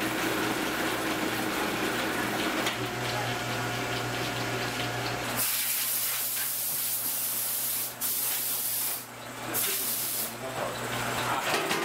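Noodle-making machinery running with a steady low hum. From about five seconds in, loud hissing cuts in three times, for roughly two and a half seconds, then more briefly twice.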